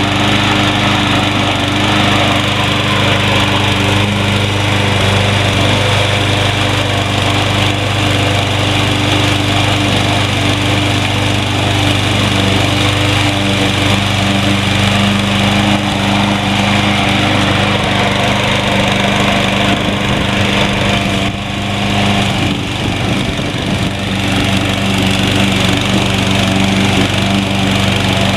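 Troy-Bilt TB230 21-inch walk-behind lawn mower engine running steadily while mowing grass. About three-quarters of the way through, its pitch and level briefly dip and waver, then recover.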